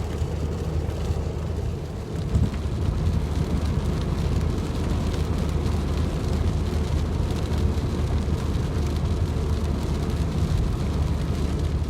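A car's engine running steadily with a low even hum, with rain falling over it; a short thump about two seconds in.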